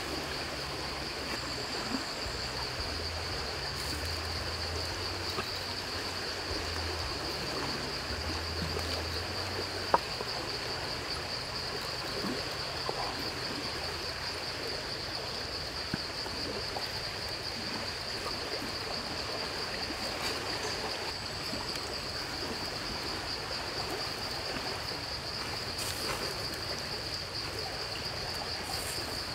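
Steady high-pitched insect chorus drone over a soft even hiss, with a single sharp tap about ten seconds in.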